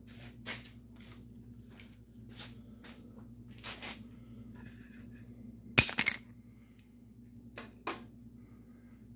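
Footsteps on a shop floor and a few sharp knocks and clicks over a steady low hum. The loudest is a quick cluster of sharp knocks about six seconds in, with two smaller ones near the end, from the camera being handled.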